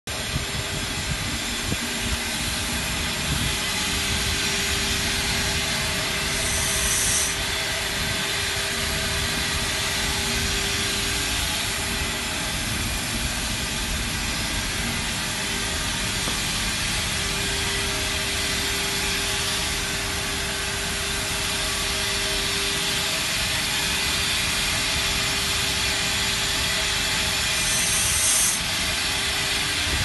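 Water-tube steam boiler plant running, its burner, fans and steam lines giving a steady roar and hiss with a constant low hum. Two brief, sharper high hisses break through, about a quarter of the way in and near the end.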